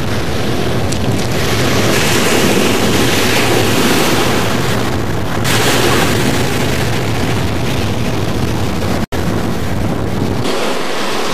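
Small waves breaking and surf washing up a sand-and-shingle shore, with wind buffeting the camcorder microphone as a low rumble. There is a brief dropout about nine seconds in, and the wind rumble falls away soon after.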